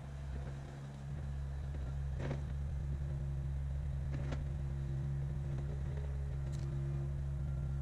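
Kubota KX057-5 mini excavator's diesel engine running at a steady speed. A few sharp clicks sound over it, about two seconds and about four seconds in.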